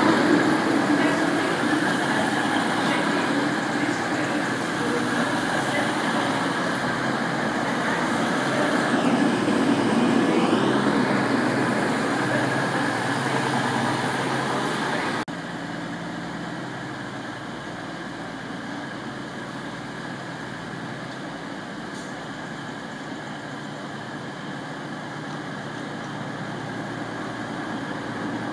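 Diesel trains moving through the station: a loud run of rolling and engine noise as an HST's coaches pass and a Class 222 Meridian diesel unit comes in, with a whine that dips and rises again about ten seconds in. After a sudden cut about halfway through, a quieter, steady diesel hum comes from Meridian units standing at the platform.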